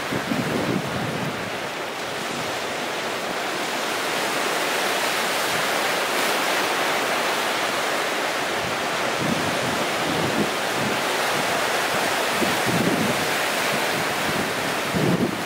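Sea surf breaking and washing in among rocks and boulders: a continuous rush of water. Gusts of wind buffet the microphone with a low rumble near the start, a few times in the middle, and again near the end.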